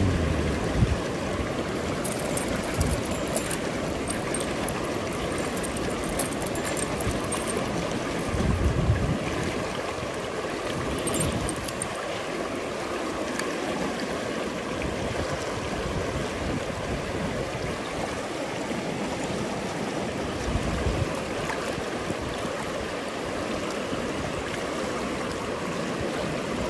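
River water rushing steadily, with a few brief low thuds and faint high clicks.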